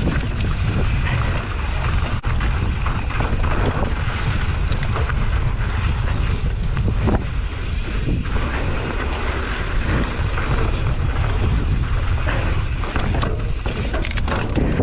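Wind buffeting the microphone: a loud, steady low rumble with gusty, uneven noise above it.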